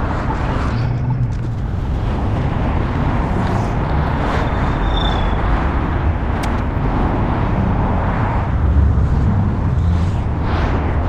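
Steady rumble of skate wheels rolling on pavement. A short high beep comes about five seconds in, and a single sharp click follows about a second later.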